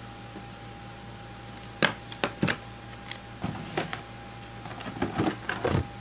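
Handling noises on a tabletop: a run of irregular clicks, knocks and rustles, as of boxes and packaging being picked up and moved, starting about two seconds in.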